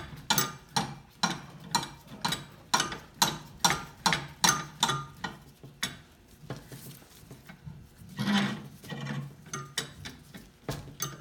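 Old steel C-clamps being tightened by hand on a glued-up wooden block: the handle and screw click with each turn, about two sharp metal clicks a second. The clicks stop about six seconds in and a few more follow near the end.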